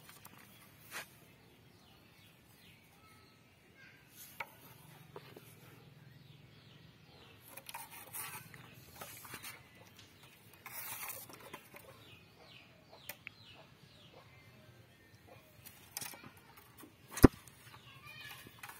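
A kitten scrabbling and pawing at loose cut grass in a concrete basin: scattered rustles, scratches and light taps, with faint chirping calls in the background and one sharp knock near the end.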